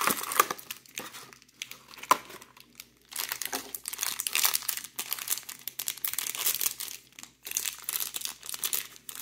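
Packaging crinkling and tearing in bursts as a blind-packed mini toy figure is unwrapped by hand, with a sharp click about two seconds in.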